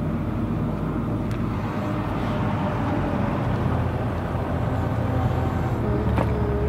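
Steady low rumble of a running vehicle engine, with a couple of faint clicks.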